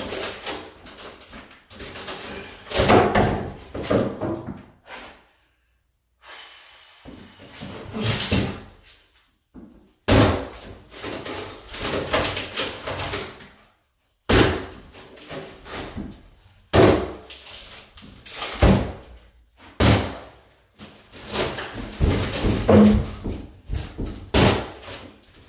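Repeated heavy bangs and knocks at irregular intervals, with rattling and scraping between them, from a cabinet being forced apart during demolition.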